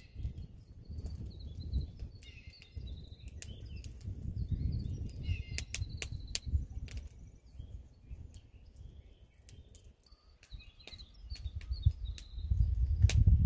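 Wind gusting across the microphone as an uneven low rumble that swells near the end, with small birds chirping and twittering now and then and scattered sharp ticks.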